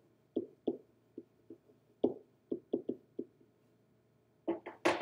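Pen tapping and knocking on an interactive whiteboard surface during handwriting: a string of short, sharp taps, about a dozen in the first three and a half seconds, then a louder cluster of knocks near the end.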